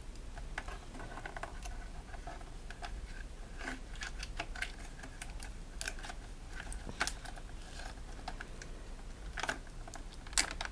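Light, irregular plastic clicks and taps from handling a DJI Phantom FC40 quadcopter and its parts, with no motors running.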